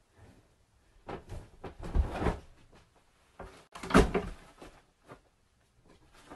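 Several dull knocks and thumps, a cluster between about one and two and a half seconds in and the loudest single one just before four seconds.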